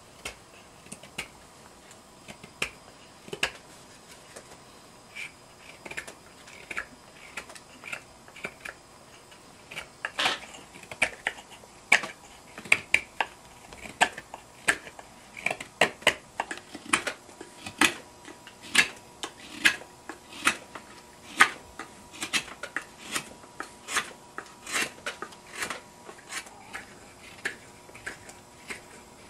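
A North Bay Forge straight carving knife slicing shavings off the outer edge of a wooden bowl: a run of short, sharp cuts. They are sparse at first, then come about one or two a second from about ten seconds in.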